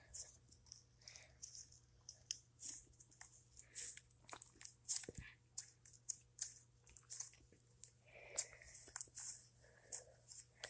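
Irregular crunching, crackling clicks, several a second and unevenly spaced, with a few louder ones in the last few seconds.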